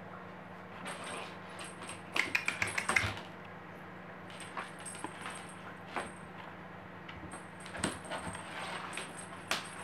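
Cream-point kitten playing with a feather wand toy on a hard floor: light taps, clicks and rustles of the toy and its paws, with a quick run of clicks about two seconds in.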